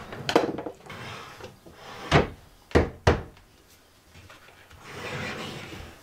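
A wooden cabinet drawer with a ball-bearing catch being pushed shut and worked, knocking against the cabinet four times, then a softer rustling noise about five seconds in.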